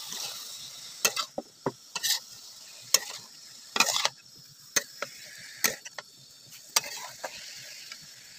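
Steel spatula scraping and clinking against a large metal wok (kadai) as it stirs and tosses shredded cabbage and onion. The clinks come irregularly, about two a second, over a faint steady sizzle.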